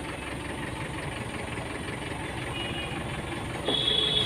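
Steady low rumble and hiss of a van, with a short high beep near the end.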